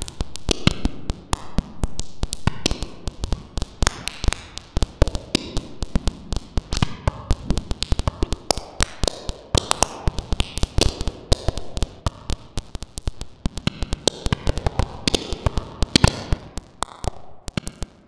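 Music track built on dense, irregular clicks and taps, thinning out briefly near the end.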